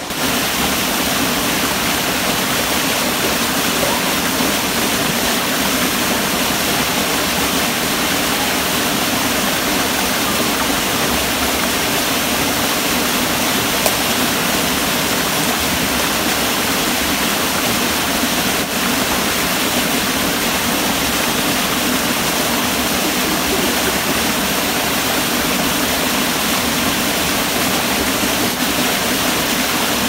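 Small waterfall pouring into a rock pool, with a shallow stream running over rocks in front: a steady, even rush of water.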